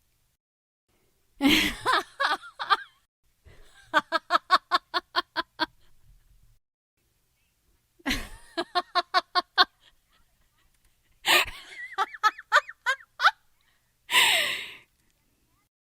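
A woman laughing in several separate bursts with pauses between: sharp breathy intakes and runs of quick, evenly pulsed 'ha-ha-ha' laughs, about eight to ten pulses in a run.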